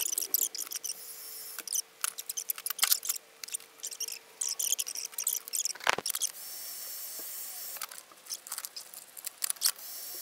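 Clicks and crackles of a sheet of PVC foam board being handled and flexed on a metal-topped workbench. About six seconds in comes a louder knock, then a hand-held heat gun runs with a steady hiss and faint high whine for a second or two, with more clicks before it runs again near the end.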